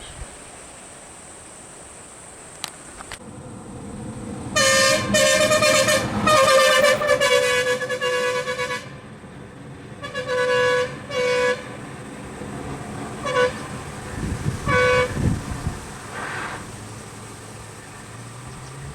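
Vehicle horn honking repeatedly: a long string of blasts, then two shorter honks, then two brief toots, with a vehicle engine running underneath.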